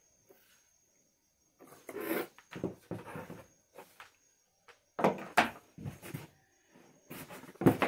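Handling noises: after a quiet moment, a run of irregular rustles and knocks as a cardboard box is rummaged through and the plastic body of an electric paint sprayer is moved and set down on the bench.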